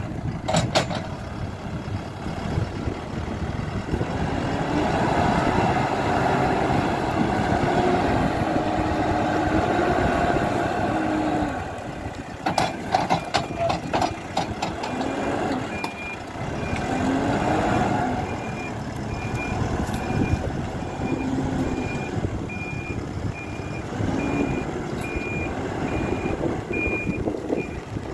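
Hidromek 102S backhoe loader's diesel engine running and revving up and down under load, with a burst of knocks and clatter about halfway through. In the last third a reverse alarm beeps at an even pace.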